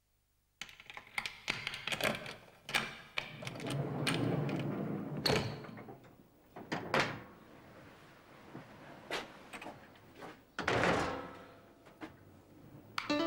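A door being unlatched and pushed open: a series of sharp knocks and clicks of bolts and latch, with a scraping stretch a few seconds in and a longer scrape about two-thirds of the way through.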